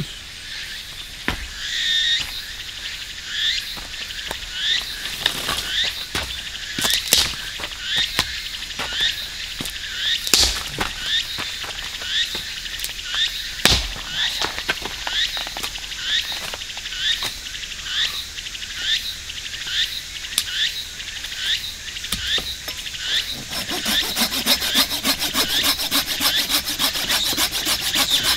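Hand saw cutting a dead branch with fast back-and-forth rasping strokes, starting about five seconds before the end. Before that, a few scattered knocks and thuds from gear being handled, over a steady background of short rising chirps repeated more than once a second.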